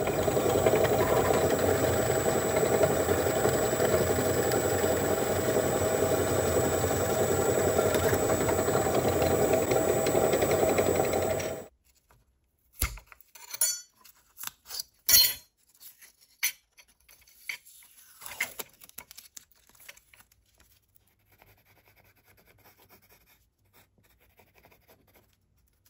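Bench drill press running and drilling through a wooden knife handle scale, a steady loud motor-and-cutting noise that cuts off suddenly about twelve seconds in. Then a string of short clicks and knocks as the parts are handled, and faint pencil scratching near the end.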